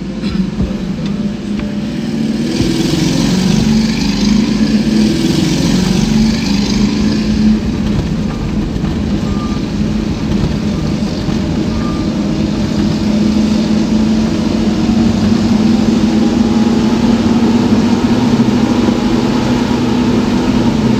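A motor vehicle's engine running steadily on the road, with a stretch of hiss in the first few seconds.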